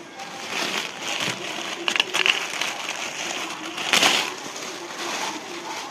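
Crinkling and rustling handling noise, with a few sharp clacks about two seconds in and a louder rustle about four seconds in.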